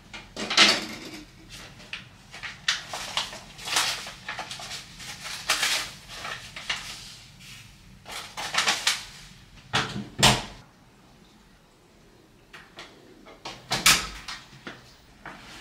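Laundry being loaded into a front-loading washing machine: clothes rustling and being handled for about ten seconds, then a heavy thud about ten seconds in, with a few more knocks near the end.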